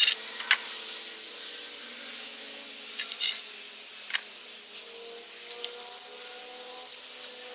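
Scattered knocks, clacks and scrapes of heavy teak boards being handled and set in place on a wooden bench, with a faint steady hum underneath.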